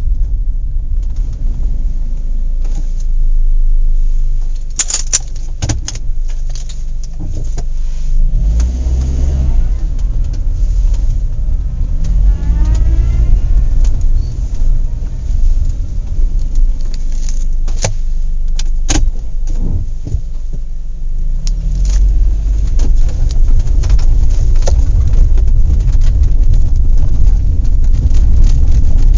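An engine runs with a steady low rumble, amid scattered clanks and knocks. Its pitch rises and falls once about halfway through.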